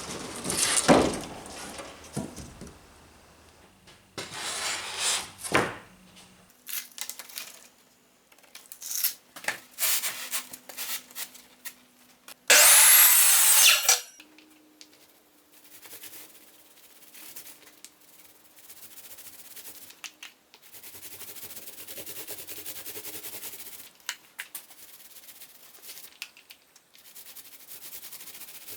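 Woodworking on plywood by hand: rubbing and scraping strokes on wood, a run of sharp knocks, and one loud rushing sound of about a second and a half just past the middle, followed by quieter steady scraping.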